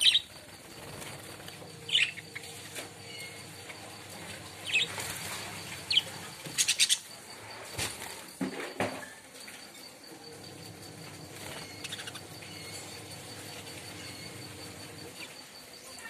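Budgerigars in a cage giving short, sharp chirps every second or two, with a quick run of calls about six to seven seconds in. Wings flap as birds flutter about the cage.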